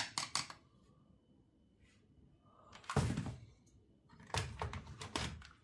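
Clicks and knocks of chainsaw parts and hand tools being handled during a teardown: a quick cluster of clicks at the start, a short rush of noise about three seconds in, and another run of clicks and knocks near the end.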